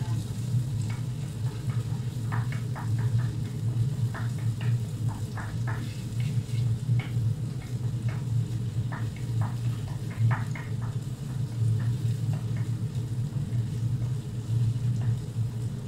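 Wooden spoon stirring a thick tomato mixture in a pot on the stove, with scattered short scrapes and sizzling crackles, over a steady low hum.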